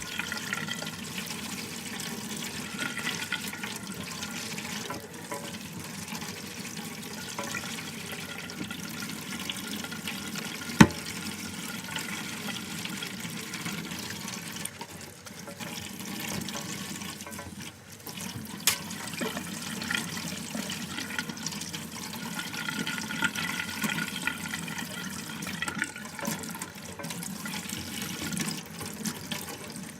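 Tap water running steadily into a sink while a wig is rinsed under it, with one sharp knock about eleven seconds in.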